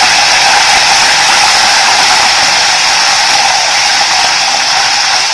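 Fresh curry leaves sizzling in hot ghee and oil with cashews, pepper and cumin, a loud steady hiss: the tempering for the pongal.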